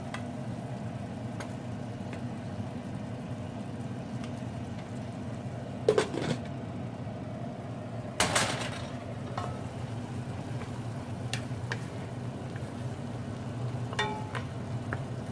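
Pan-cooking sounds over a steady low hum: fish being turned with a wooden spatula in a frying pan, then a glass pan lid clatters and clanks down onto the pan about six and eight seconds in, with a short ring. Near the end a light knock comes as vegetables are stirred in a wok.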